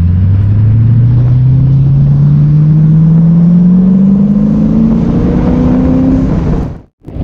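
Straight-piped 2006 Ford GT's supercharged V8 accelerating hard in one long pull, the exhaust note rising steadily in pitch with no gear change. The sound cuts off suddenly near the end.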